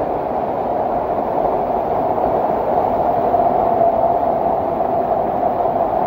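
Loud, steady rush of a mountain stream and waterfall in spate, swollen by monsoon rain, the water pouring without a break.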